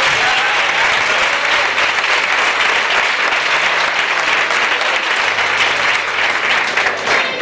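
Audience applauding steadily, a dense sustained clapping.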